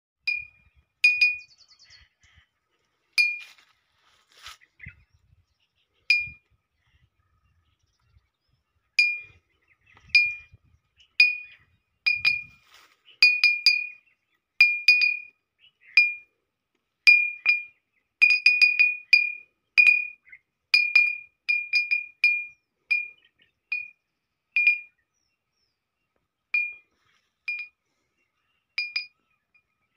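A hanging green glass beer bottle struck again and again by a small weight swinging on a string beside it: irregular sharp clinks, each ringing at the same clear pitch, sometimes two or three in quick succession and coming thickest in the middle. It is a homemade bottle noisemaker for scaring nilgai away from a field.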